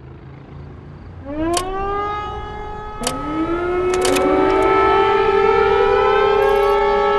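Several civil-defence air raid sirens winding up one after another, about a second in, three seconds in and four seconds in, each rising in pitch and then holding a steady wail, overlapping into a chorus, with a few sharp clicks among them.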